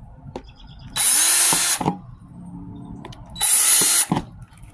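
Cordless drill boring holes through the bottom of a black plastic plant pot, in two short bursts. The motor whine rises as each burst starts.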